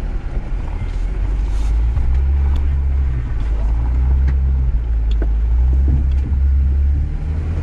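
Jeep Gladiator Rubicon running low and steady as it crawls over a rough trail in four-wheel drive, with a few sharp knocks about two and a half and five seconds in.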